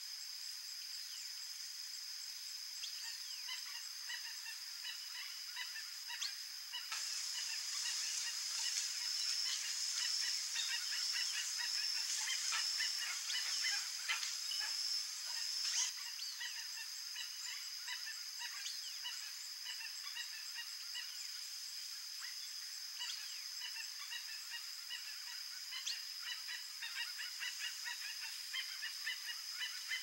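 Chestnut-bellied guan calling in many short repeated notes, over a steady high-pitched buzz that grows louder and wavers from about 7 to 16 seconds in.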